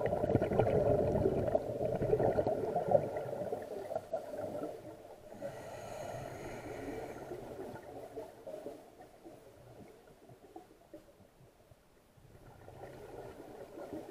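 Scuba diver breathing through a regulator underwater: a burst of exhaled bubbles rumbling and gurgling for about five seconds, a softer hissing stretch, a quiet pause, then the next exhalation bubbling near the end.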